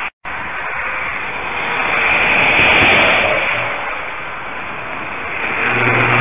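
Highway traffic going past: steady tyre and wind noise of passing cars that swells as a car goes by about halfway through and builds again near the end as another car approaches. A low steady hum comes in near the end.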